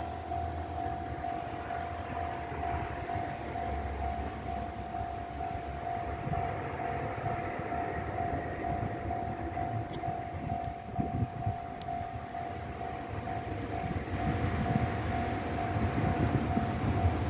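Japanese level crossing's electronic warning bell ringing in a steady, fast-repeating ding. A Tosaden tram's rumble grows louder over the last few seconds as it approaches.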